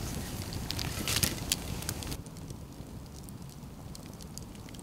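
Wood campfire crackling and popping, busier and louder for the first two seconds, then quieter with only occasional pops.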